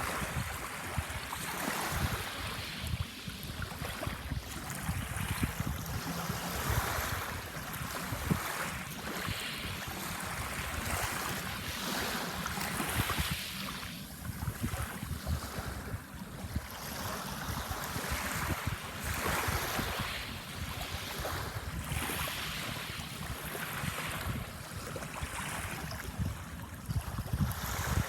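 Small waves breaking and washing on a sandbar shore, surging and ebbing every few seconds, with wind rumbling on the microphone.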